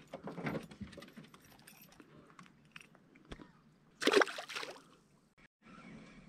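A small fish splashing into the river beside the boat as it is dropped back off the hook, about four seconds in; before that, light knocks and handling noises in the boat.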